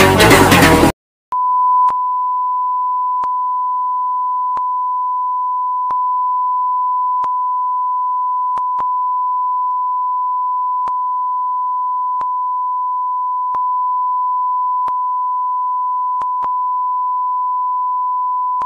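Background music cuts off about a second in. After a short silence, a single steady high-pitched beep tone holds unbroken, with faint ticks a little more than a second apart, like a film sound effect of a flatline or ringing ears.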